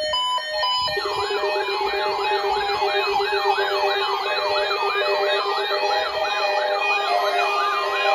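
Electronic alert siren starting abruptly: about a second of stepped beeps, then a fast rising-and-falling yelp sweeping about two and a half times a second over a steady buzzing tone.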